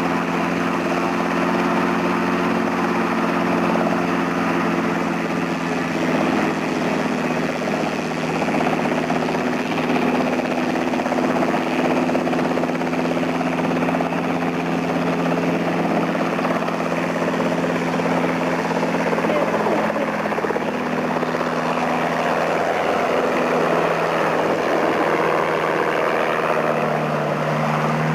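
Robinson R22 helicopter's piston engine and two-blade rotor running as it lifts off and flies away: a steady hum with several engine tones over a rushing noise, its pitch shifting near the end.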